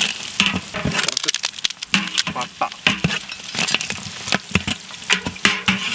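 Sliced shallots and green chillies frying in hot ghee and oil in a large aluminium pot, sizzling with many sharp crackles and pops.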